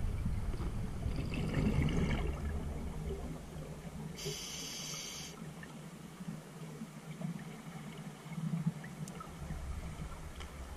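A scuba diver's regulator breathing, heard through an underwater camera housing: bursts of exhaled bubbles rumbling and gurgling, and one hissing inhalation through the demand valve about four seconds in.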